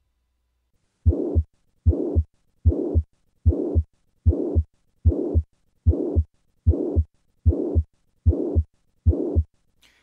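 Heart sounds with the systolic murmur of significant mitral regurgitation, from a patient with mitral valve prolapse. Starting about a second in, eleven regular beats come at roughly 75 a minute. In each beat a rough whooshing murmur fills the gap between the first and second heart sounds.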